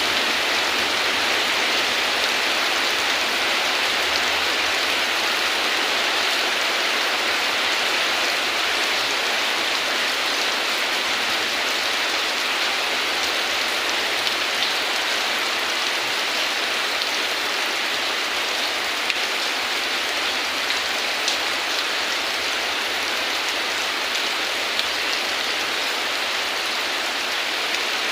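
Heavy rain falling steadily: an even hiss of rain on surfaces, with a few sharper single drop ticks here and there.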